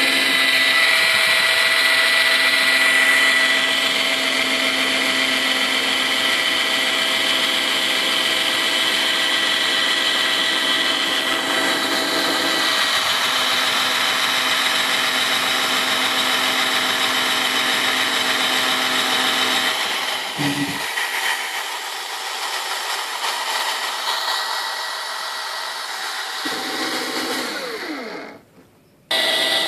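Old 7.2-volt cordless drill motor whining steadily under load as it spins a plastic trolling-motor propeller in the water. The whine breaks off briefly near the end.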